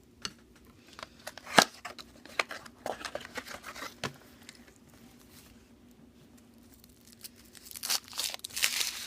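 Plastic wrapper of a chocolate surprise egg being snipped with scissors and torn open, crinkling. A sharp snip about a second and a half in, a run of small clicks after it, and a burst of tearing and crinkling near the end.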